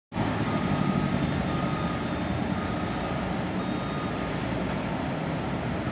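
Engines of heavy trucks and earthmoving machinery running steadily, with a reversing alarm beeping roughly once a second.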